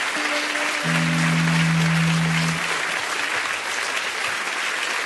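Studio audience applauding over a short electric-guitar phrase: a couple of notes, then one long held note that stops about two and a half seconds in. After that the clapping carries on alone.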